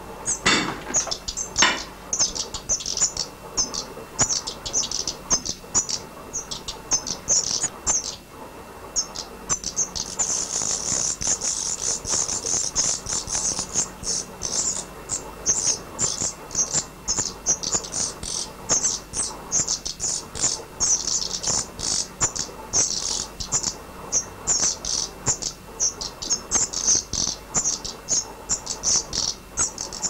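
Nearly fledged songbird nestlings in the nest giving rapid, high-pitched begging chirps, several a second, thickening into a near-continuous chorus about a third of the way through. Two sharp knocks sound near the start.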